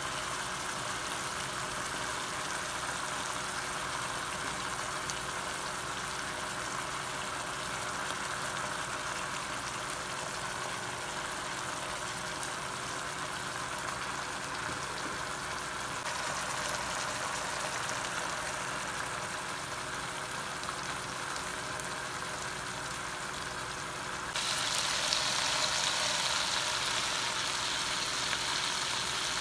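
Mackerel in tomato sauce simmering and sizzling in a frying pan. About 24 seconds in the sizzling turns louder and brighter, as beaten egg goes into the hot sauce.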